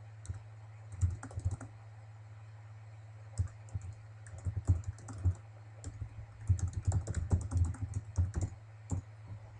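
Typing on a computer keyboard: quick runs of keystroke clicks, a short run about a second in and longer, denser runs in the second half, over a steady low hum.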